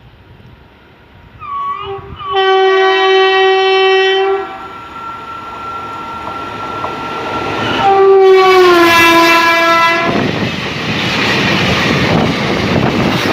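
WAG-7 electric locomotive's multi-tone air horn: a short double blip, a long blast, then a second long blast whose pitch drops partway through as the locomotive passes. Afterwards the empty flatbed freight wagons rattle past on the rails.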